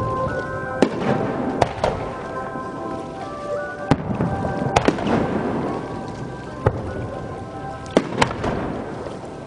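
Fireworks bursting overhead: about eight sharp bangs at uneven intervals over a crackling rumble, with music playing through loudspeakers for the show.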